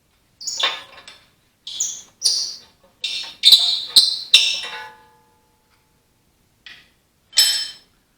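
Steel tractor parts clanking and scraping as they are worked loose, with two sharp metal-on-metal strikes near the middle; the second leaves the metal ringing briefly. Another clank comes near the end.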